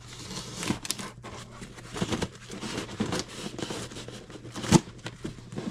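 Knife blade slicing and scraping along packing tape on a cardboard box, the tape tearing and crinkling as it is cut, with a sharp click about three-quarters of the way through.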